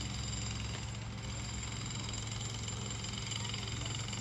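A steady low mechanical hum, like a motor running continuously, with an even hiss over it.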